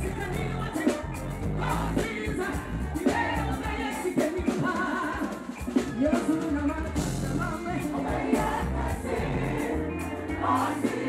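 Live gospel music: a woman sings lead into a microphone over a band with bass, guitar and drums, joined by backing singers.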